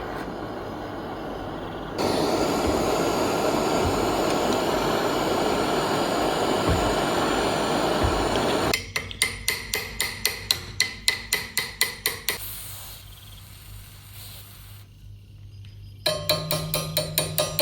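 Hammer blows on metal in a quick even run, about four a second, each with a short metallic ring. The run breaks off and starts again near the end. Before the blows there are several seconds of steady harsh rushing noise.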